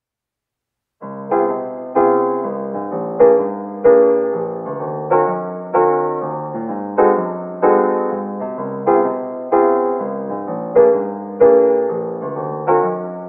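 Background piano music: a gentle tune of struck notes, each ringing and fading, coming in about a second in after a moment of silence.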